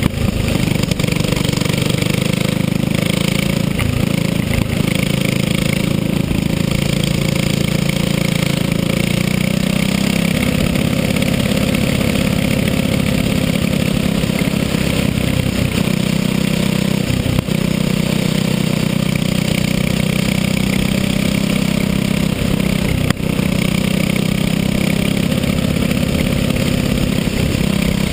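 Small racing kart's engine running at a fairly steady pitch at speed on an asphalt track, a continuous drone mixed with wind rush on the onboard camera, dipping briefly twice.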